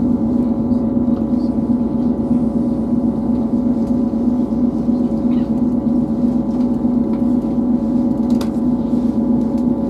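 Inside a Class 158 diesel multiple unit: a steady humming drone with several held tones from the underfloor diesel engine and transmission, over low rolling rumble, as the train runs slowly into a station. A single sharp click comes about eight seconds in.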